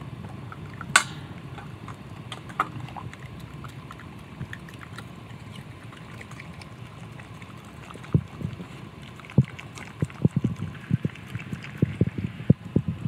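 Dog licking the last juices of a raw meal from an empty stainless steel bowl: wet tongue lapping, with a sharp clink against the bowl about a second in. In the last few seconds the licks come quicker, with a run of short knocks of tongue and muzzle against the metal.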